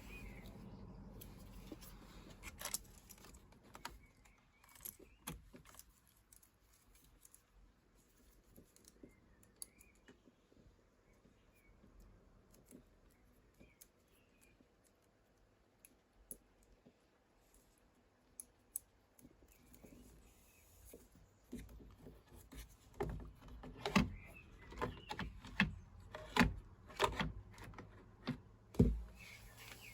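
Scattered light clicks, taps and rattles of small metal tools and parts being handled, sparse at first and coming thick and fast in the last third.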